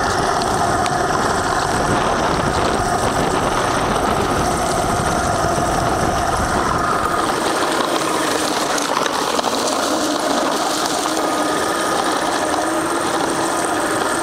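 A small motor running steadily while moving, with a few steady whining tones over a heavy rumble; the rumble eases about halfway through.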